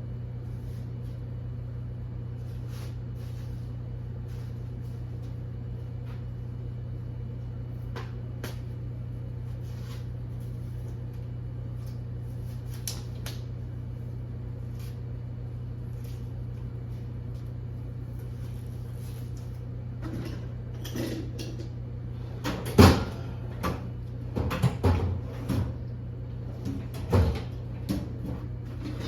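A steady low hum, with a few faint ticks, then in the last third a run of sharp metal clanks and knocks, as of hand tools and parts being picked up and set down during axle work on a car.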